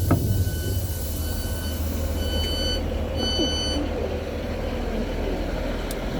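Train door warning beeps, a high tone repeating in short bursts that stop a little over halfway through, over the steady low rumble of a diesel multiple unit.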